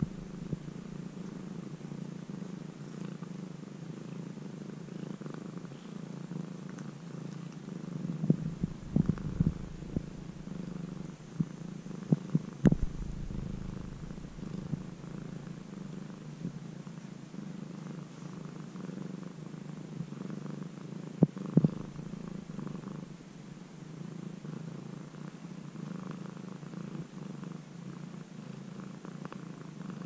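Domestic cat purring steadily, picked up with the microphone held very close. A few sharp knocks of handling noise break in a third of the way through and again about two-thirds through.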